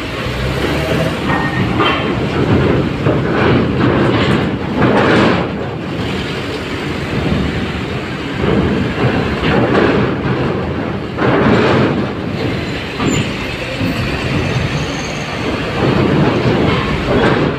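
Trucks rolling off a ferry's bow ramp one after another, engines running, with loud metal clanking and rattling each time the wheels cross the steel ramp plates and grating.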